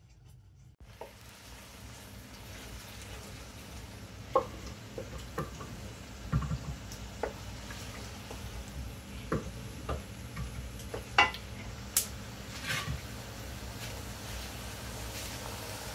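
Food sizzling as it fries in oil in a pan, starting about a second in, stirred with a wooden spoon that now and then knocks and scrapes against the pan.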